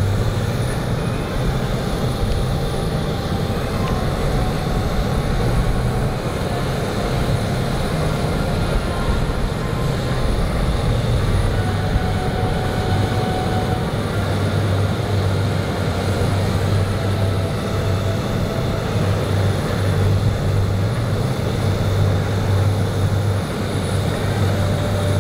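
Northrop B-2 Spirit's four General Electric F118 turbofan engines heard as a steady, low jet rumble while the bomber flies toward the listener.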